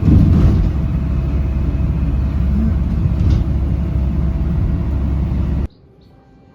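Loud, steady low rumble that cuts off suddenly about five and a half seconds in; faint music follows.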